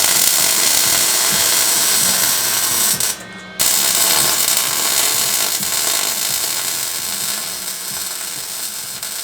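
Welding arc crackling steadily as a weld is filled in on the cracked engine mount of a scooter frame. The arc breaks off abruptly about three seconds in and strikes again half a second later.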